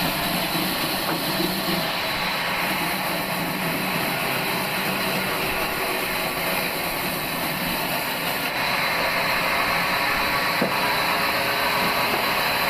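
Old bandsaw sawmill machine running, giving a steady, even noise.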